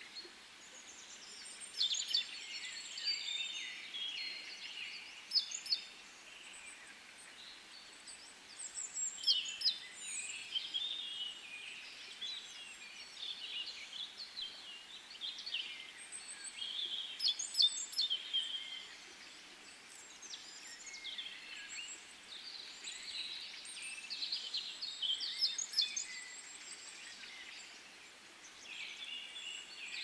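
Several songbirds singing, high chirps and trills overlapping in bouts every few seconds, over a faint steady background hiss.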